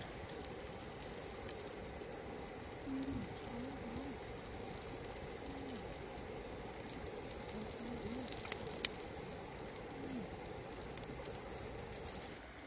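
Pork head roasting on a spit over a wood fire: fat sizzling and hissing as it drips into the fire, with a sharp pop about a second and a half in and another near nine seconds.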